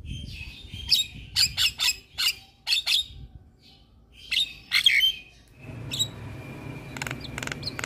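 Javan myna calling: a run of short, harsh, chattering notes, then a few more after a brief pause. Near the end a steady low noise comes in under further raspy notes.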